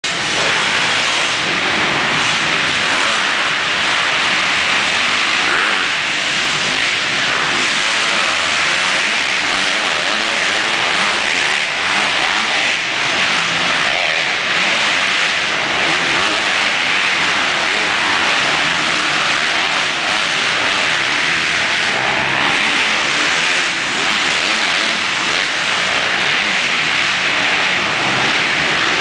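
Several motocross dirt bikes revving and running hard around an indoor arena track, a loud, steady din of overlapping engines with no let-up.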